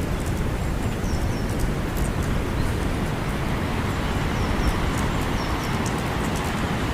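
Campfire burning, with scattered sharp crackles and pops over a steady low rumble, and a few faint short high chirps.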